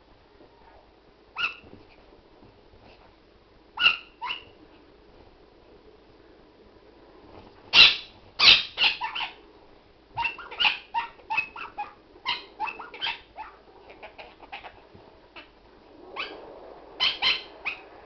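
Short, sharp yaps and squawks from a Maltese dog and a Quaker parrot at play: a few single calls in the first seconds, then a rapid run of them from about eight seconds in.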